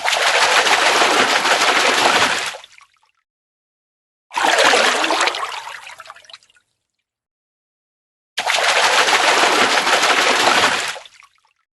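A fish splashing and thrashing at the water's surface, in three separate bursts of a couple of seconds each. The middle burst fades away gradually; the other two stop fairly sharply.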